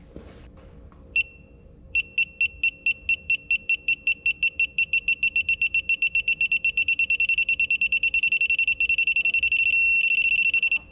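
Digital torque adapter on a ratchet beeping as a connecting-rod cap bolt is tightened: a single beep about a second in, then beeps that come faster and faster as the torque nears the set value, merging into a steady tone near the end when it is reached.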